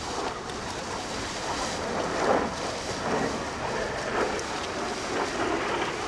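Jet aircraft engine noise from a pass over the bay, a steady broad rushing sound that swells and fades slightly, with wind buffeting the microphone.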